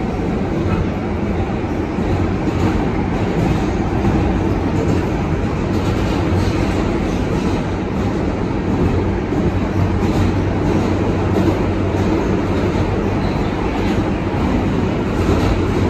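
Steady running noise inside an R142A subway car moving between stations: a continuous rumble of wheels on rail with a low, even hum and faint irregular clicks.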